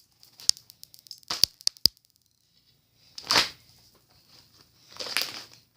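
Crunchy butter slime with beads mixed in being worked by hand: a few sharp pops and clicks, then two longer crackling bursts about two seconds apart.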